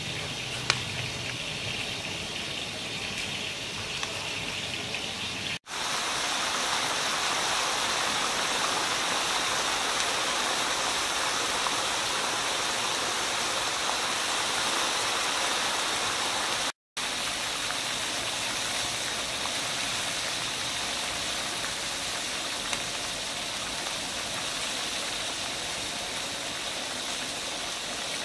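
Steady sizzling hiss of mud crab frying in a wok, first lifted out of hot oil and then tossed with salt and pepper. The sound drops out for a moment twice.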